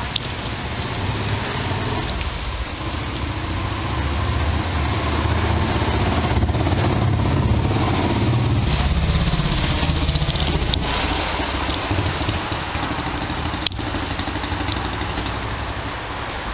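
Street traffic: a motor vehicle's engine rumble swells as it passes about midway, then fades back into the general street noise.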